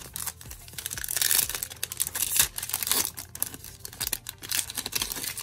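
Foil wrapper of a 2022 Panini Diamond Kings baseball card pack crinkling and tearing as it is ripped open by hand. Irregular crackles, loudest about a second in and again around two and a half seconds.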